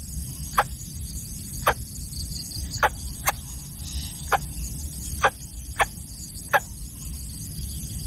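Greater coucal chick giving short, sharp squeaky calls, about eight of them at uneven intervals, over a steady low rumble.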